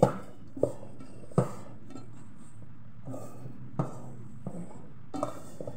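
A hand mixing a sticky minced-meat and flour dimsum filling in a pot, with sharp knocks of hand and pot: three in the first second and a half, one more about four seconds in.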